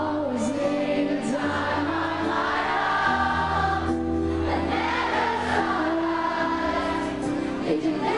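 Live pop-rock concert: the band playing with singing, held notes over a sustained low bass note.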